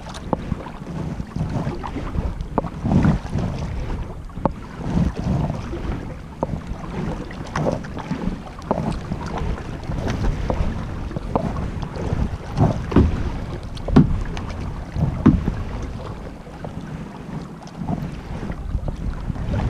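Kayak paddle strokes, the blades dipping and splashing into the water in repeated strokes about every second or two, with wind rumbling on the microphone.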